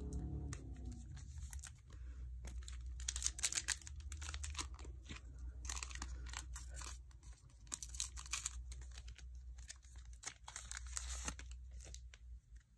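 Foil wrapper of a trading-card pack crinkling as it is torn open, with the cards inside handled; a run of short rustles and crackles, loudest about three seconds in.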